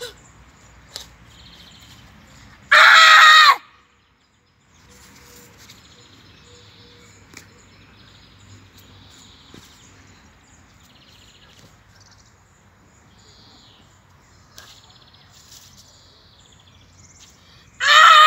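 A boy karateka's two kiai shouts in the Heian Sandan kata, one about three seconds in and one near the end: short, loud, sharp yells of under a second each. Faint bird calls between them.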